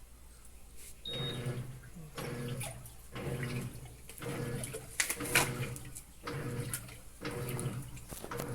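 Washing machine running a wash cycle with water inside: the motor hums in strokes about once a second, pausing briefly between each, as the drum or agitator swings back and forth through the water.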